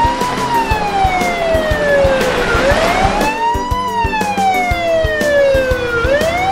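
Police car siren wailing: a quick rise in pitch, then a slow fall, repeating about every three and a half seconds. Background music with a steady beat plays underneath.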